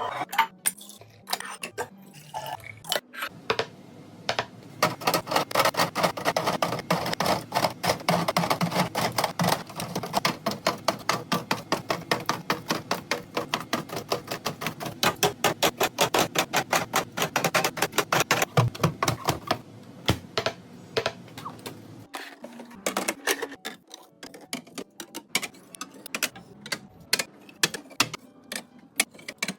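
Small items being handled and set down during restocking, giving a fast run of sharp clicks and taps. The clicks come thick and quick for about fifteen seconds from a few seconds in, then thin out to scattered taps.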